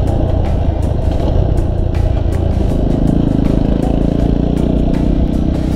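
Motorcycle engine running while under way, with wind and road noise over the microphone. About three seconds in, the engine settles into a steady, held note.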